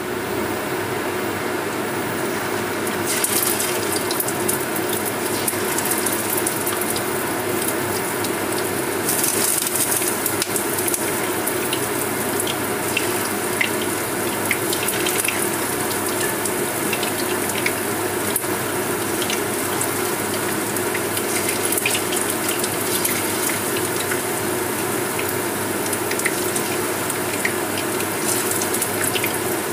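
Marinated fish fillet strips deep-frying in hot oil in a wok: a steady sizzle full of small crackles, with louder bursts of hiss about three seconds and nine seconds in as more strips go into the oil. A steady hum runs underneath.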